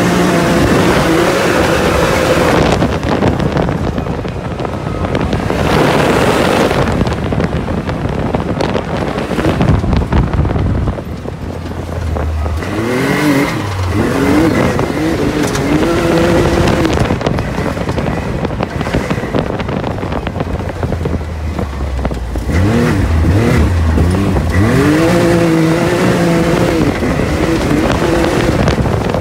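Can-Am Maverick X3 side-by-side driven hard off-road. Its turbocharged three-cylinder Rotax engine revs up and eases off, its pitch climbing steeply about 13 seconds in and again about 22 seconds in, over steady wind rush on the microphone.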